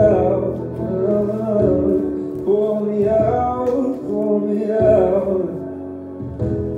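Slow pop ballad playing, with sustained piano chords under a male voice singing.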